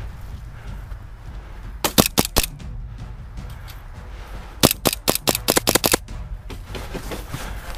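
Airsoft pistol firing: three quick shots about two seconds in, then a fast string of about seven shots a couple of seconds later.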